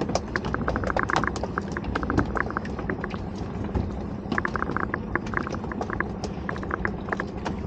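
Water lapping and slapping against the hull of a small boat drifting at sea, with short bursts of rapid tapping and clicking.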